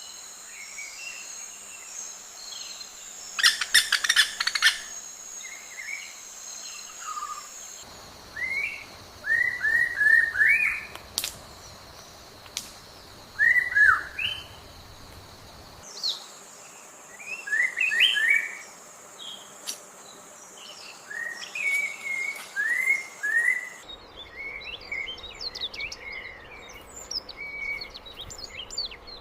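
Small birds chirping: short, sharp calls in quick runs of three to five, with a fast rattling chatter about four seconds in, over a steady high hiss that comes and goes.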